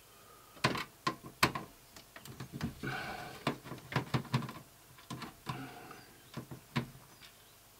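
Irregular sharp metallic clicks and ticks with some scraping, as a screwdriver works small screws in the sheet-metal chassis of a Panasonic DMR-EZ45V VHS-DVD recorder. The loudest clicks come in the first second and a half.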